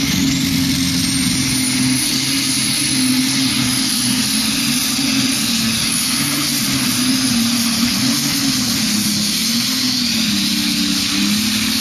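Pulling tractor's engine running flat out under full load as it drags the weight-transfer sled, a loud steady howl whose pitch wavers slightly. A thin high whine over it climbs in the first two seconds and then holds.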